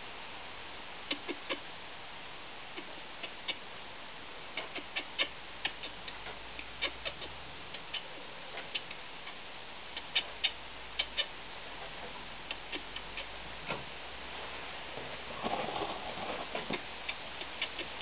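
Sharp little clicks and taps in quick clusters of two to four from a red squirrel moving about and feeding on wooden deck boards, with a louder scuffle about fifteen seconds in.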